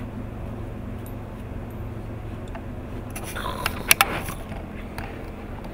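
Steady low background hum, then about three seconds in a puppy's metal collar tag jingles and clinks close to the microphone, with two sharp clicks about four seconds in.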